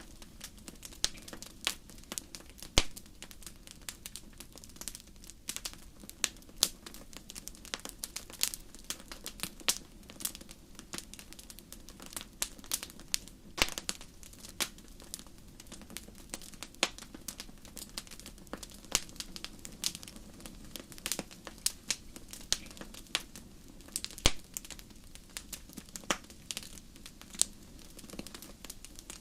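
Wood fire in a fireplace crackling, with dense irregular sharp pops and snaps over a low steady rush of the flames.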